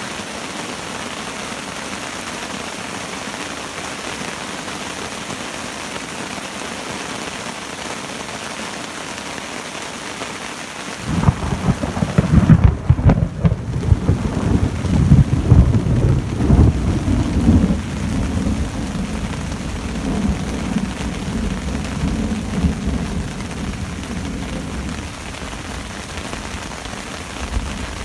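Steady rain falling through a thunderstorm. About eleven seconds in, a loud roll of thunder breaks out and rumbles on for several seconds, slowly dying away under the rain.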